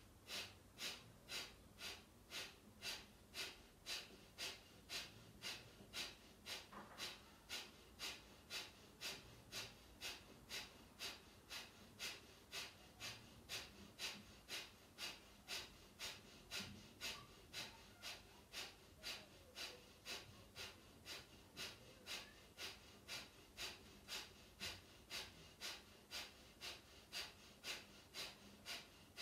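Kapalabhati pranayama breathing: short, forceful exhalations through the nose in a steady rhythm of about two a second.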